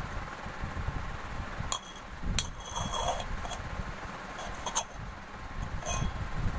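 Stainless-steel tumbler clinking and scraping on a stone floor as a baby knocks and pushes it, about half a dozen sharp metallic clinks with a brief ring. A low steady rumble runs underneath.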